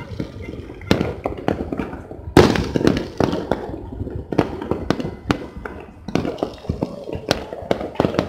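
New Year fireworks and firecrackers going off across a city: irregular bangs and pops from many directions. The loudest bang comes about two and a half seconds in and leaves an echoing rumble.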